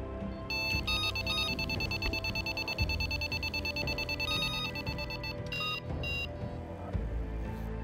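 Electronic carp bite alarm sounding a run: a steady high-pitched tone for about five seconds, then two short bleeps. It is the signal of a fish taking the bait and pulling line from the rod.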